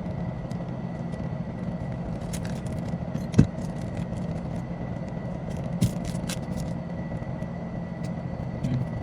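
A steady low mechanical hum with a faint high whine, with scattered small clicks and taps; a sharper knock comes about a third of the way in and another a little past halfway.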